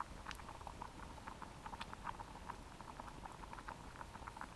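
Water and rice at a rolling boil in a metal Crusader cup over a small wood-burning stove: light, irregular pops and crackles several times a second.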